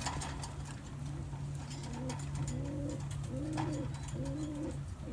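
Domestic pigeons cooing: a run of short rising-and-falling coos starting about two seconds in, over a steady low hum.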